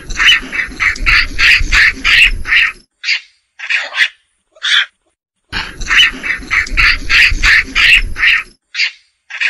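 Macaque calls: two fast runs of short, high, shrill calls at about four a second, each lasting about three seconds, with a low rumble under them. Single calls come spaced out between the runs.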